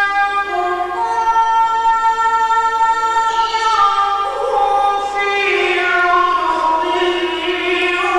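A male reciter's voice chanting the Quran in the ornamented mujawwad style. He sings one long, drawn-out melisma, holding each note and moving up and down in steps.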